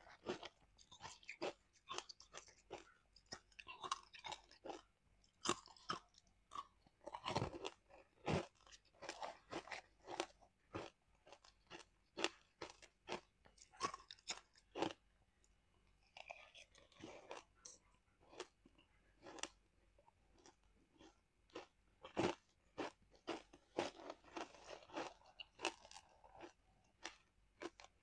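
Ice being bitten and chewed close to a clip-on microphone: many sharp, irregular crunches one after another.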